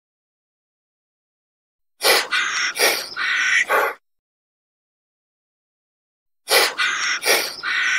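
An animal call played twice as a repeated sound clip: the same loud call of a few pulses, about two seconds long, about two seconds in and again near the end, with dead silence between.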